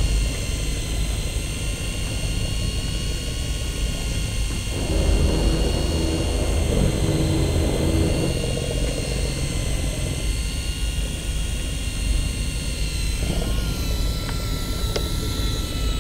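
Electric fishing reel's motor whining steadily as it winds in line, several high steady tones over a low rumble. A lower hum joins for a few seconds about five seconds in.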